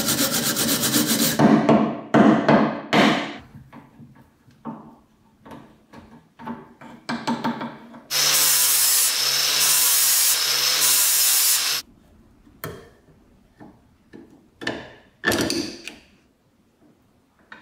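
Hacksaw cutting rusted metal held in a bench vise, in quick rasping strokes, followed by scattered scrapes and knocks of metal. About eight seconds in, a power tool runs steadily for nearly four seconds and cuts off suddenly, then a few light metal taps.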